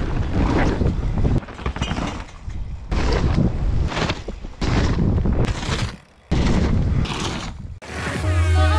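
Short clips of mountain-bike riding cut together: wind on the microphone with the bike's tyres and frame rattling and thudding, each clip ending abruptly after one to two seconds. Electronic music starts near the end.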